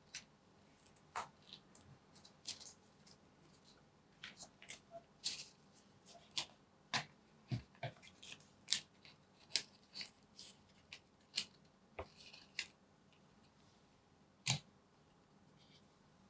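Paper and thin card inserts of an iPhone box being handled: an irregular string of short, crisp taps, clicks and rustles as pieces are lifted out and set back into the box tray.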